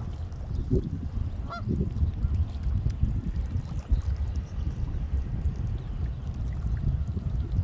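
A goose honking briefly a couple of times, loudest about a second and a half in, over a constant low rumble.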